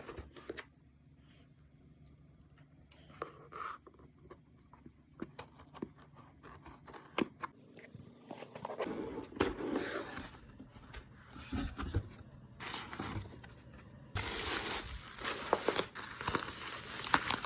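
Gift packaging being opened by hand: wrapping crinkling and tearing with small clicks and handling knocks. It starts faint and sparse, and the crinkling grows denser and louder about halfway through and again near the end.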